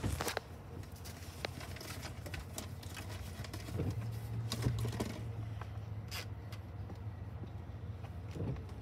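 Low, steady drone of a large cruise ship's machinery as it passes close by, swelling for a few seconds midway, with light clicks and knocks scattered through it.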